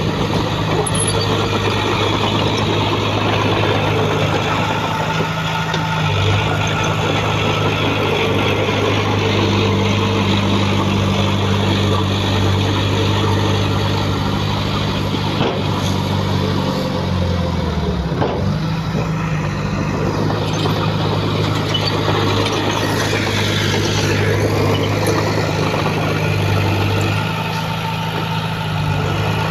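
Heavy diesel engine of earthmoving machinery running steadily. About two-thirds of the way through, its pitch dips and comes back up.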